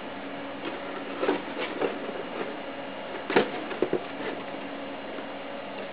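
Handling noise as a graphics card is lifted out of its cardboard box and stood on top of it: scattered light knocks and rubs, the sharpest about three and a half seconds in, over a steady background hum.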